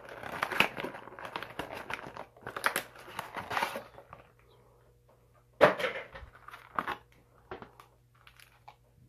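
Foil trading-card booster pack wrapper crinkling and tearing as it is ripped open, for about four seconds. Then a sharp click about halfway through and two lighter taps.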